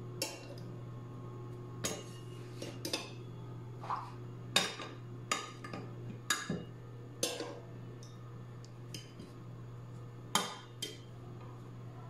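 Metal kitchen tongs clicking and tapping against glass dishes, about fifteen short, sharp taps at irregular intervals. A faint steady hum runs underneath.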